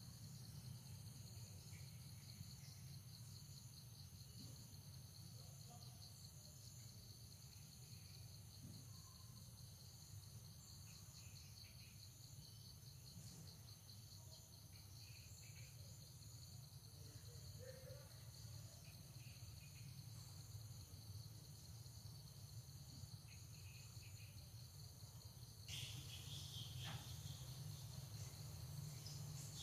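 Faint insects chirring steadily in a high, finely pulsing drone over a low steady rumble. Near the end a brief louder burst of noise.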